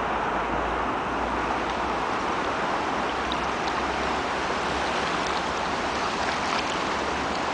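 Steady rush of flooded river water, with faint small splashes now and then.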